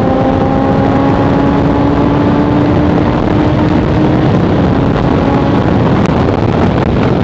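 Steady wind rush on a helmet microphone inside a full-face helmet at highway speed, with the Suzuki GSX-R's inline-four engine note rising slowly underneath for the first few seconds before it sinks into the wind.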